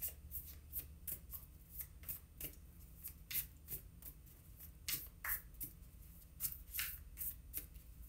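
A deck of oracle cards being shuffled by hand: soft, irregular flicks and slides of card against card, a few a second.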